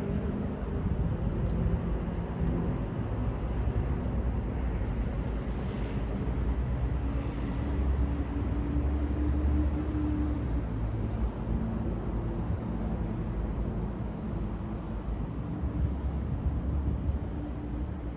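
City street traffic: a steady rumble of car engines and tyres with a low engine hum, swelling a little about halfway through.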